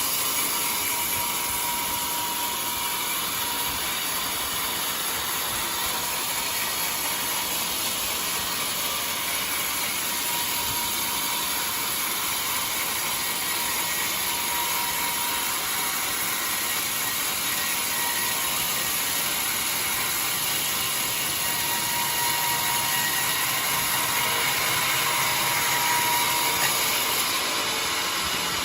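Band sawmill running steadily as its blade saws through a jackfruit log: a continuous rushing, whining machine noise, slightly louder a little after the middle.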